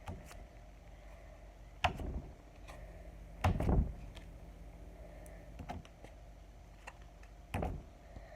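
Plastic slime containers being handled: a few short knocks and clatters, the loudest and longest about three and a half seconds in.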